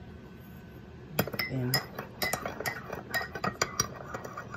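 Metal teaspoon stirring in a china teacup and clinking against its sides, a quick run of clinks about four a second starting about two seconds in.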